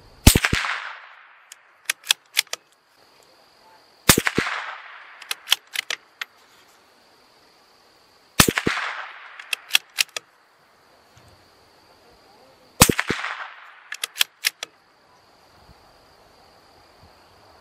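CZ 457 bolt-action .22 LR rifle firing supersonic Remington Golden Bullet rounds: four shots about four seconds apart, each a sharp crack with a fading echo. A second or two after each shot comes a quick run of clicks as the bolt is worked to load the next round.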